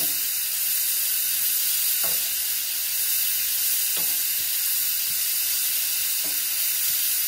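Sliced leeks sizzling steadily as they sauté in olive oil in a frying pan, stirred with a wooden spoon, with a few faint strokes of the spoon against the pan about every two seconds.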